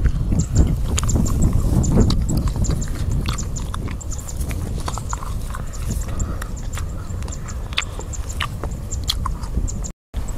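Close-up crunching and wet chewing of raw green mango slices, with irregular sharp crisp clicks from the firm fruit, over a steady low wind rumble on the microphone. The audio cuts out briefly near the end.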